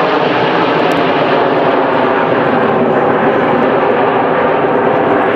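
Loud, steady jet noise from the Red Arrows' BAE Hawk T1 jets in flight, each powered by a single Adour turbofan.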